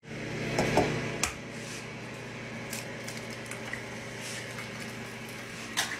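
An egg being cracked into a non-stick frying pan: wet squishy sounds, with a sharp tap about a second in and another near the end, over a steady low hum.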